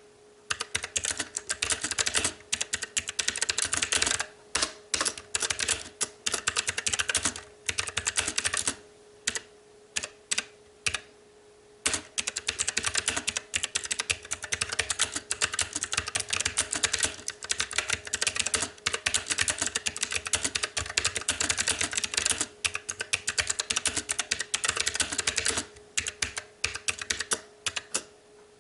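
Fast typing on a STOGA retro typewriter-style mechanical keyboard with blue clicky switches: runs of rapid, sharp key clicks, broken by short pauses and a longer pause about a third of the way in and again near the end.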